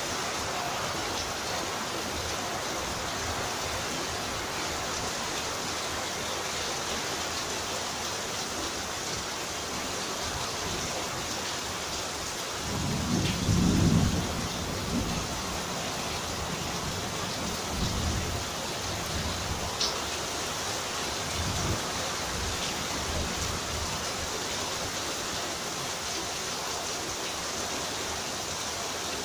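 Steady rain of a nor'wester (kalbaishakhi) thunderstorm. A low rumble of thunder comes about halfway through and is the loudest thing, followed by a few fainter rumbles.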